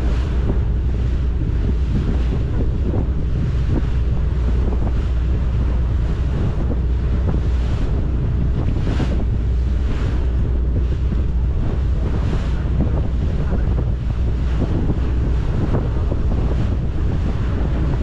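Boat underway at sea: a steady low engine drone, with water rushing and splashing along the hull in repeated surges and wind buffeting the microphone.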